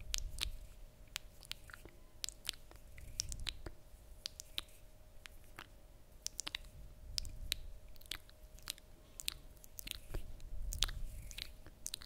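Close-miked mouth sounds: irregular wet clicks and smacks of lips and tongue, several a second, over soft swells of breath on the microphone.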